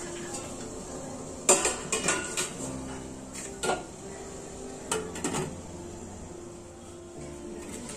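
Stainless steel steamer insert set down into a pot and the lid put on: a series of metal clanks and clinks, the loudest about one and a half seconds in, more just after two seconds, near four seconds and around five seconds.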